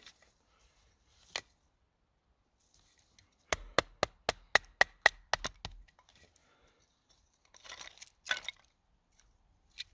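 Wood being struck and cracking: a quick, even run of about ten sharp cracks, about four a second, then softer rustling a couple of seconds later.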